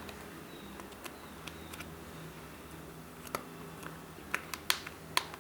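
Faint sharp clicks and small scrapes of a precision screwdriver working the tiny screws out of a smartwatch's back, a few at first and more in quick succession over the last two seconds, over a steady low hum.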